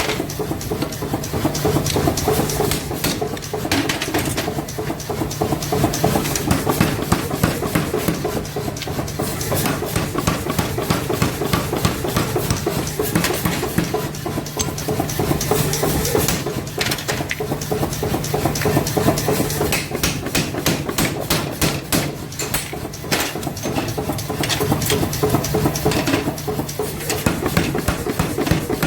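Hammer blows striking hot steel while a nail puller is forged, over a steady machine hum. The strikes come irregularly, with a quick run of them about twenty seconds in.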